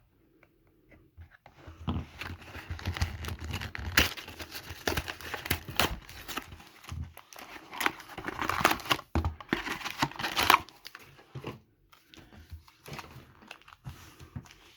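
Trading card pack wrappers being torn open and crinkled by hand: dense crackling, loudest around four seconds in and again from about eight to ten seconds, then only scattered rustles.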